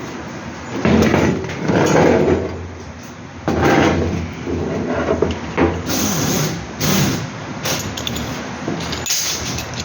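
Irregular knocks and clatter of hands-on mechanical work on a vehicle, with a few short hissing bursts in the second half.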